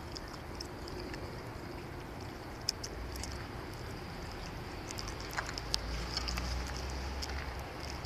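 Quiet outdoor ambience with many scattered light ticks and a low rumble that swells from about three seconds in until near the end.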